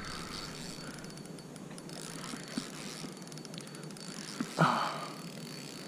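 Spinning fishing reel clicking rapidly as a hooked fish is played, its ratchet ticking fast and fairly steadily. A brief louder noise comes about four and a half seconds in.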